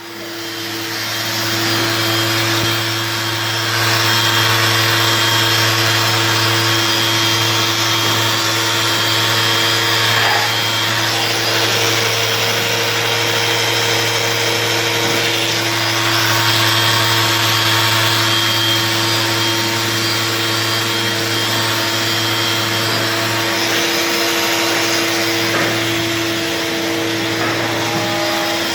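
Electric orbital sander starting up and running steadily on a Corian solid-surface countertop, sanding out scratches: a steady hum under an even hiss, building up over the first couple of seconds.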